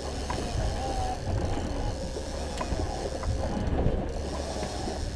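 Steady low rumble of a trolling fishing boat's engine, with a few light mechanical clicks from the fishing gear as a line is let out to depth.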